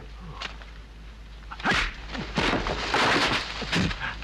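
Fight sound effects from a dubbed kung fu film: a few sharp hits and swishes about a second apart, then a body thrown down into straw near the end.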